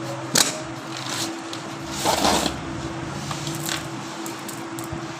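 Clutch parts being handled: a few light clicks, then a short scraping rustle about two seconds in, over a steady hum.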